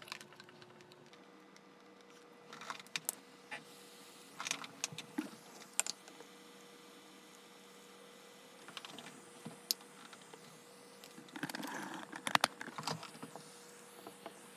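Scattered light clicks and taps of wires, a small circuit board and a gas soldering iron being handled during soldering, with a busier run of clicks near the end. A faint steady hum runs underneath from about a second in.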